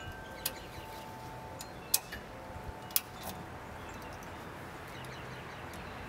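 Sharp metallic clicks from a motorcycle ratchet tie-down strap being worked loose, a few in the first half with the two loudest about a second apart and fainter ticks between.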